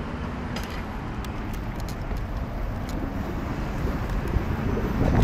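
Steady low rumble of city road traffic, growing louder near the end.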